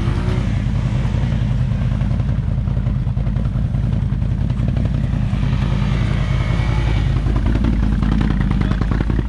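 ATV engine running steadily, its low drone unbroken.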